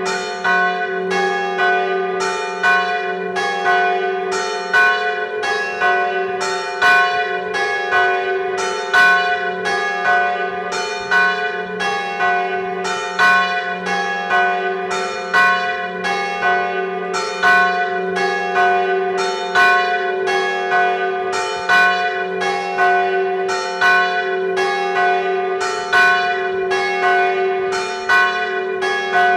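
Church bells tolling a death knell, heard close up inside the belfry: the big bell swings in full peal while the two smaller bells are struck in alternation. The strokes come steadily, about one and a half a second, over the big bell's lasting hum.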